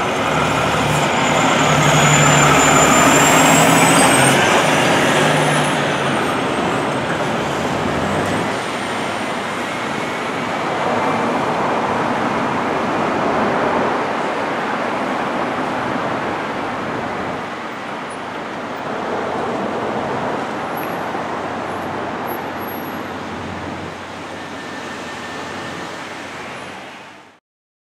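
Tiller ladder fire truck's diesel engine running as it drives off, loudest in the first few seconds, then settling into a steady rumble of engine and road noise that fades out near the end.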